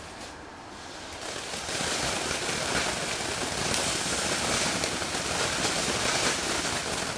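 Consumer firework fountain burning with a steady hissing crackle. It comes in about a second in, swells to full strength over the next second and then holds steady.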